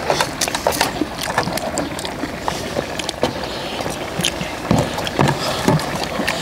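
Eating sounds: chewing and sucking meat off pork back bones, with frequent small clicks and clinks of metal tongs, chopsticks and spoons against steel bowls, over a steady low rumble.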